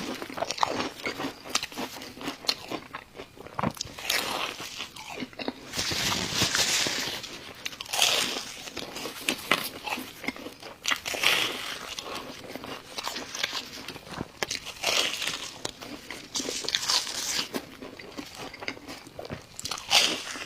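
A person biting and chewing crunchy food, a steady run of short crunches with louder spells of crunching every few seconds.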